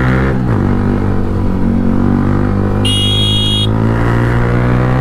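Yamaha R15 V3's single-cylinder engine through an aftermarket exhaust, accelerating: a quick upshift just after the start, then the revs climb steadily through the gear. A brief high-pitched beep sounds about three seconds in.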